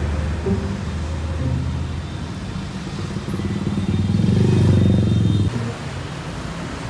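A motor vehicle's engine running with a low, even pulse. It grows louder from about three seconds in and drops back after about five and a half seconds, as if the vehicle comes close and moves away.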